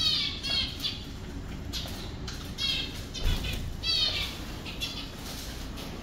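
Small aviary finches giving short, high, downward-sliding chirps every half-second or so, with a flutter of wings as a hand-held chick is released and flies.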